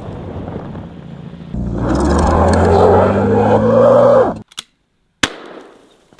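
Toyota Corolla engine revving hard with wind on the microphone. The pitch climbs slowly for about three seconds, then drops and cuts out abruptly, followed by a sharp click.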